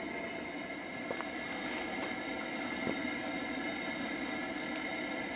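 Coleman two-burner dual-fuel camp stove burning on high under a coffee percolator, making a steady, even noise with a few faint ticks; the water is heating but not yet perking.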